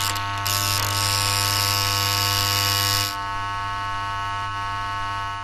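Electric buzzing sound effect: a steady, harsh electrical hum with crackling sparks on top from about half a second in to about three seconds in.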